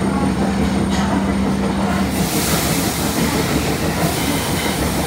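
Running noise inside an Osaka Metro 30000A series subway car with its doors shut. A steady low hum stops about two seconds in, and a louder high rushing noise takes over.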